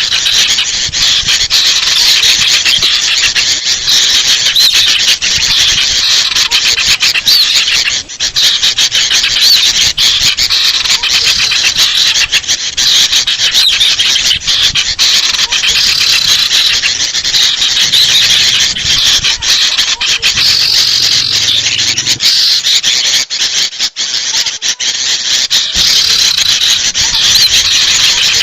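Bird-lure recording of sooty-headed bulbuls (kutilang) in agitated alarm chatter, combined with sirtu calls. The result is a dense, unbroken stream of loud, high, squeaky calls with no pauses.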